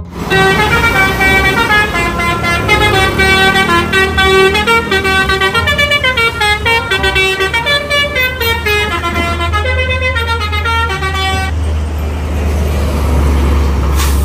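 Bus telolet horn, a multi-tone horn, playing a tune of quick stepping notes for about eleven seconds over the low steady rumble of the bus engine. The horn stops near the end and the engine rumble carries on alone.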